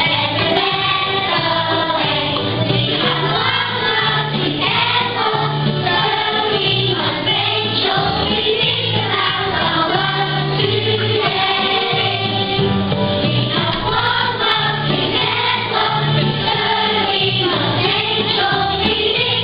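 A group of young children singing a song together as a choir, over a musical accompaniment with low bass notes that change every second or so.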